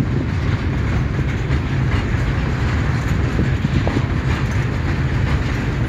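Freight train of grain hopper cars rolling past, a steady low rumble of steel wheels on the rails with a few faint wheel clicks.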